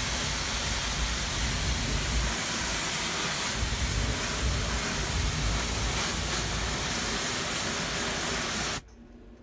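High-pressure water jet from a pressure-washer wand hissing steadily as it is sprayed onto a dirt-clogged evaporator coil, with a low rumble beneath. It cuts off abruptly near the end.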